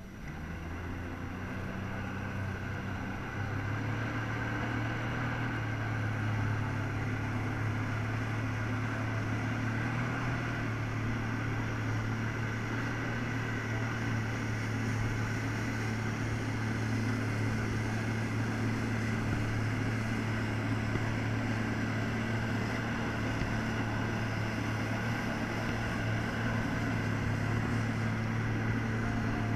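Personal watercraft engine running under load as it pumps water up the hose to a flyboard. It steps up in level twice, once right at the start and again about three seconds in, then holds a steady high drone.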